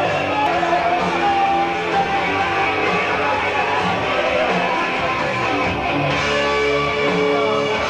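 Music with guitar playing steadily.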